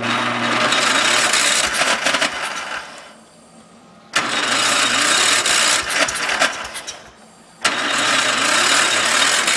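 John Deere 140 garden tractor's Kohler engine being cranked by its starter in three attempts of about three seconds each, with short pauses between. It is a hard cold start and the engine does not catch.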